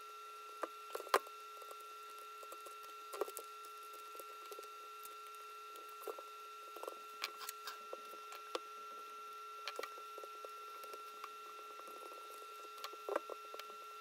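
Faint scattered clicks and taps of a plastic gearshift trim piece and its protective film being handled and pressed down by hand, over a steady faint hum.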